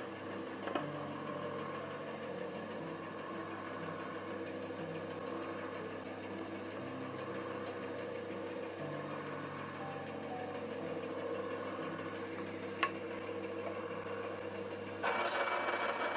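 Faint background music with held low notes, then about fifteen seconds in the Full Boar band saw comes in loud and steady, its blade cutting a thin strip of wood.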